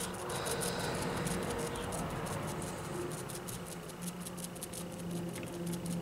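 Foam sponge brush dabbing wet black paint up and down onto a craft foam sheet: a quick, steady run of soft pats.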